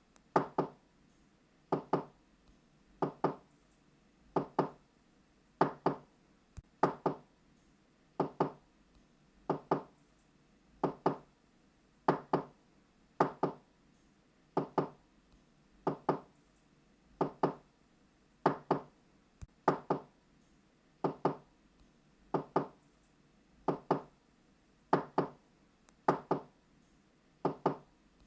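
Knocking on a door in double knocks, 'knock-knock', two quick raps per pair, with a pair repeating steadily about every second and a half.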